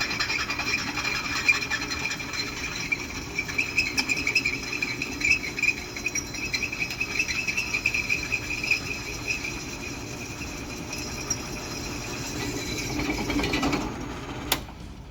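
Drill press running with its bit boring through quarter-inch steel plate lubricated with cutting oil: a steady motor hum with a high, wavering tone from the cut. It stops about fourteen seconds in, followed by a couple of sharp clicks.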